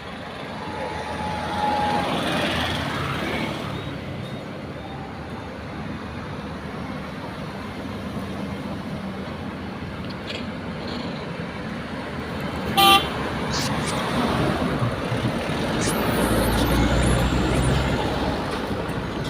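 Steady road traffic noise with a short vehicle horn toot about 13 seconds in; a low engine rumble grows louder near the end.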